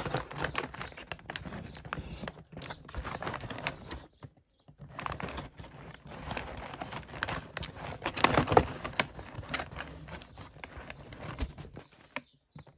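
Handling noise from a phone on a stand being adjusted close to the microphone: irregular clicks, knocks and rustling, with a short pause about four seconds in.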